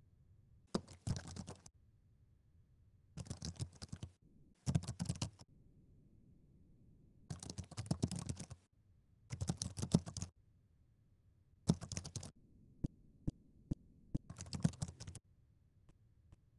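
Typing on a laptop keyboard: rapid keystrokes in short bursts of about a second each, separated by pauses, with a few single key clicks near the end.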